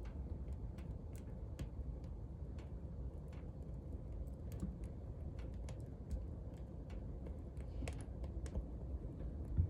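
Firewood crackling in a wood stove: irregular sharp pops and ticks, one or two a second, over a low steady rumble.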